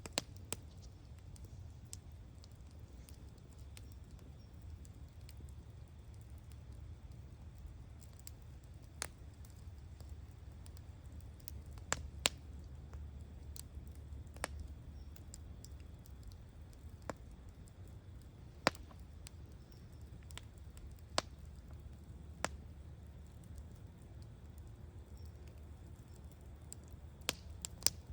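Wood bonfire crackling: irregular sharp pops, roughly one every second or two and a few louder than the rest, over a low steady rumble.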